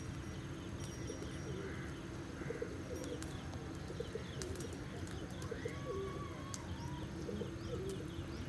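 Doves cooing in short repeated phrases, with small birds chirping quickly and higher up, over a steady low background hum.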